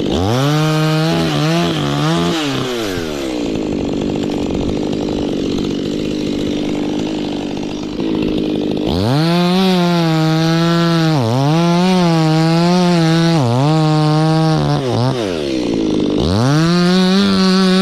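Stihl chainsaw engine run up to full throttle three times, falling back to idle in between. While at full speed the pitch wavers and dips briefly.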